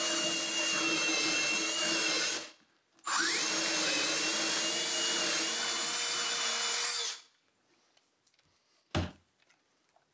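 Ridgid cordless drill boring a dog hole through a workbench top's pine core with an auger bit: a steady motor whine that stops about two and a half seconds in, spins back up with a rising pitch and drills on, then stops about seven seconds in. A single knock near the end.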